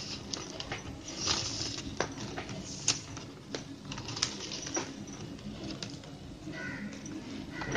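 Plastic craft wire strands being handled and threaded through a woven plastic basket by hand: irregular light clicks, taps and rustles as the stiff strands knock and slide against the weave.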